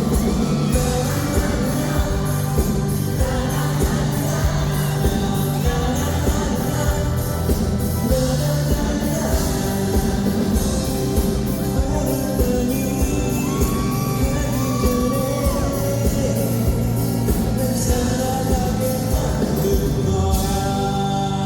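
Live pop song: a male singer's voice over a band with a steady beat, with occasional shouts from the audience.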